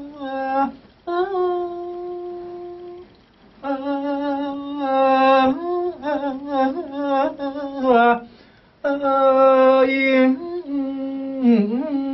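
A man's voice in khap sepha, Thai sung recitation, drawing out long held notes with a wavering, ornamented pitch. It comes in phrases with short breaths about one, three and eight seconds in.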